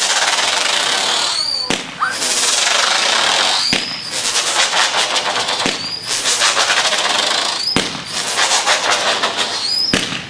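Consumer fireworks going off: a sharp pop about every two seconds, each followed by a brief high rising whistle, over a continuous hissing crackle. The crackle drops away at the very end.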